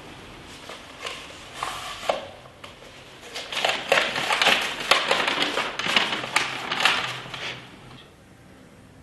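A rolled parchment letter being handled and opened, with a crackling rustle of stiff paper. A few light clicks come first, the rustling is busiest in the middle, and it dies away near the end.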